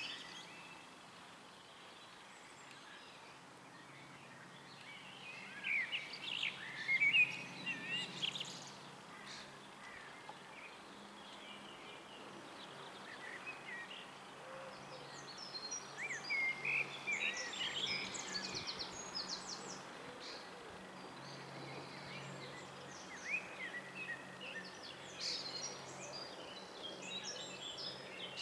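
Small birds chirping and singing in scattered bursts of quick high notes, over a steady low background hum.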